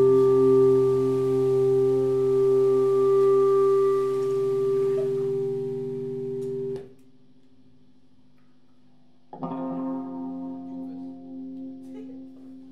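Guitar chord left ringing and slowly fading, then cut off abruptly about seven seconds in. After a short lull, another chord is strummed about two and a half seconds later and left to ring out.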